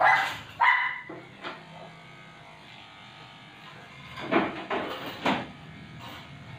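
Short cries from a Shih Tzu: two near the start and a cluster about four to five seconds in. Electric grooming clippers hum faintly between them.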